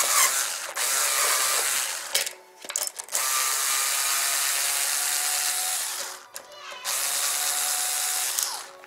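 Electric screwdriver running in three long bursts as it backs a deck bolt out of the scooter's deck plate, the nut held from below with locking pliers.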